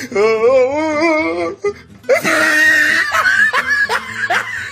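A held, wavering sung note for about a second and a half. After a short gap comes a loud rush of noise, then people laughing in quick repeated bursts.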